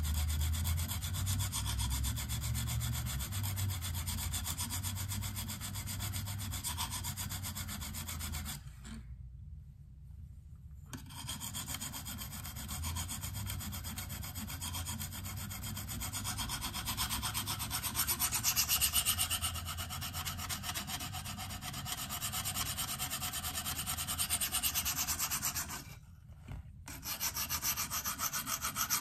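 A KME guided-rod sharpener's hone is stroked rapidly back and forth along the steel edge of a clamped folding knife, making a continuous gritty scraping. The strokes stop briefly twice, about nine seconds in and near the end, then resume.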